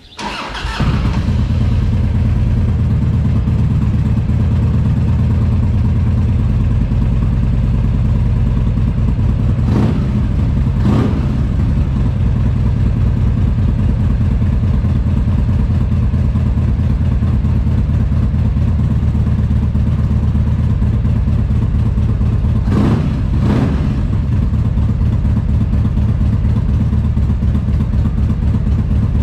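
1998 Harley-Davidson Dyna's Evolution Big Twin, an air-cooled 45° V-twin, fires right up on the starter and settles into a steady idle. The throttle is blipped twice in quick pairs, about ten seconds in and again near twenty-three seconds. The owner says it is running rich on its CV carburettor with slow jets.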